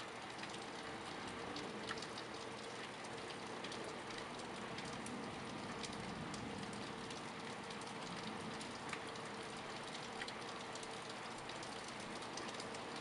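Rain falling steadily as a thunderstorm arrives: an even hiss with many scattered sharp ticks of drops striking nearby surfaces.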